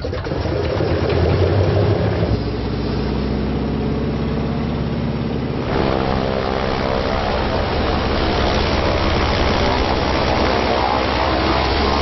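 Antonov An-2 biplane's radial engine and propeller running at high power. The sound shifts abruptly about six seconds in, then runs steady and a little louder.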